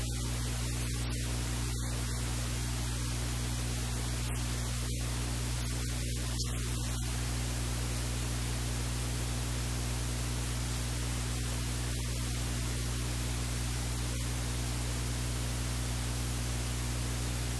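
Steady static hiss with a low electrical hum underneath, unchanging throughout: recording noise with no other sound standing out.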